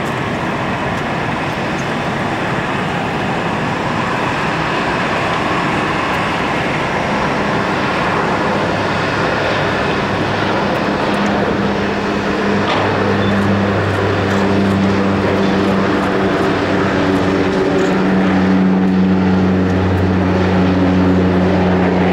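Cessna 208 Caravan floatplane's PT6A turboprop at takeoff power through the takeoff roll, lift-off and climb-out. A low propeller hum comes up about a third of the way in and grows stronger as the sound slowly gets louder.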